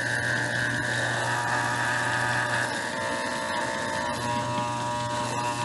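Corded electric pet clippers buzzing steadily as they shave a long-haired dog's coat. The tone of the buzz changes slightly about three seconds in.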